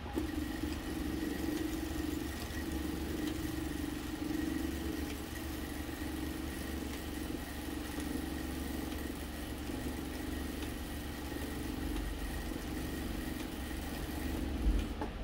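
Industrial single-needle sewing machine running steadily, stitching through heavy denim, with a steady hum and a thin high whine. It starts at the outset and stops near the end with a brief knock.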